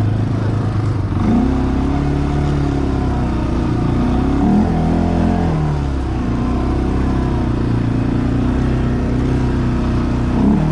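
ATV engine running, its pitch rising and falling as the throttle is opened and eased off, with quick revs about four and a half seconds in and again near the end.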